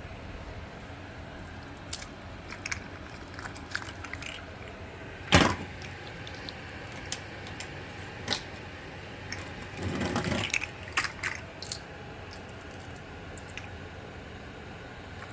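Handling noise: scattered light clicks and taps over a steady low background, with one sharp knock about five seconds in and a short rustling scrape about ten seconds in.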